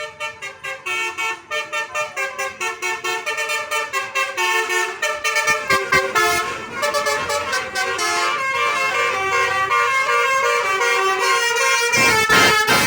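Indonesian tour bus's Basuri 'telolet' musical air horn playing a quick melody: short toots at about four or five notes a second, running into longer held notes in the second half. A burst of rushing noise comes near the end.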